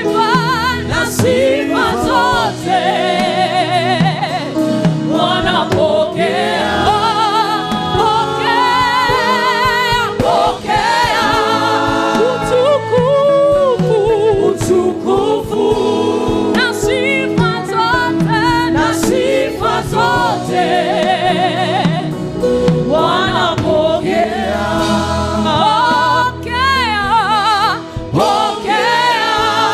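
Gospel worship music: voices singing together as a choir, with wide vibrato on the held notes, over sustained accompaniment chords.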